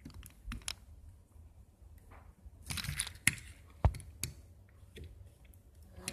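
Handling noise: scattered light clicks and knocks, with a rustling scrape about three seconds in and a sharp knock just before four seconds.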